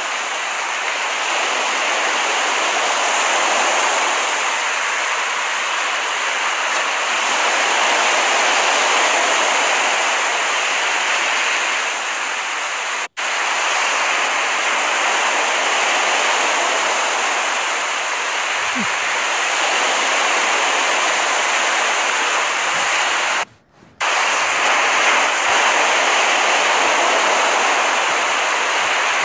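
Recorded ocean surf: a steady, continuous wash of waves. It cuts out for an instant about halfway through and drops out for about half a second near three-quarters of the way, like a splice in the recording.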